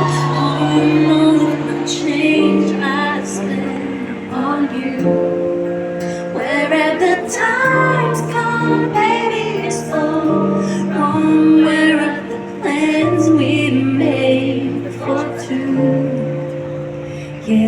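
Live music intro: held chords changing every couple of seconds, with a female voice singing wordless lines over them.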